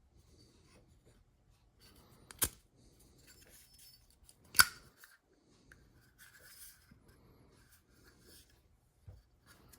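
Two sharp metallic clicks about two seconds apart, typical of a Zippo pipe lighter's hinged lid being snapped open and shut, amid light handling and rustling.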